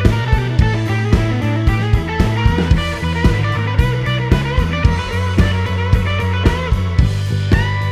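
Background rock music: electric guitar over a bass line and a steady drum-kit beat.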